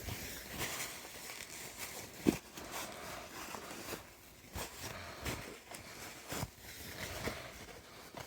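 Handling and wiping a steel vise on a bench: faint rubbing and rustling with scattered light clicks and knocks of the steel parts, the sharpest knock about two seconds in.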